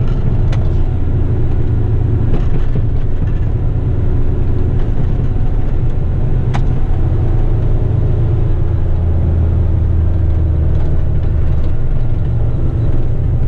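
Heavy rigid truck's diesel engine and road noise heard from inside the cab while driving: a steady low rumble with a few light clicks.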